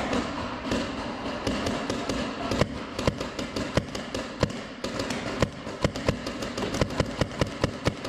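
Paintball markers firing: an irregular string of sharp pops, thickening from about two and a half seconds in to several a second, over a steady background din.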